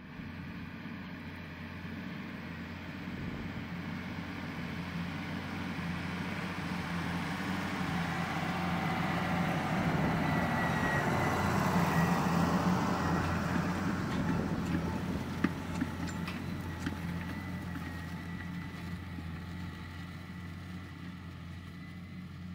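Case IH 5150 Maxxum's straight-piped six-cylinder diesel running steadily under load as it pulls a 20-disc offset disc harrow. It grows louder as the tractor comes close about halfway through, then fades as it moves away. A few sharp clicks come a little after the loudest point.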